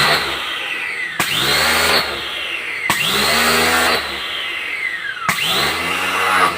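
Electric pressure washer's motor and pump running in repeated surges. Each surge starts abruptly with a whine that falls in pitch, about every two seconds, over a hiss.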